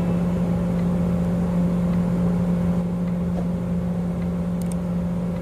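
Engine of the vehicle the camera sits in, running steadily at idle with a low, even hum, heard from inside its cab.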